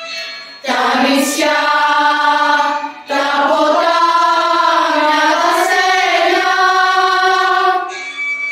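A song: voices singing two long phrases of held, wavering notes over a light instrumental backing, which plays alone briefly at the start and again near the end.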